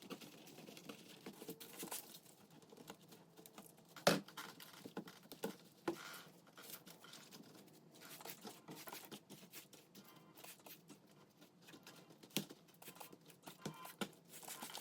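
Faint rustling, crinkling and light tapping of dry craft materials, such as dried leaves, being handled. There are scattered small clicks and one sharper click about four seconds in.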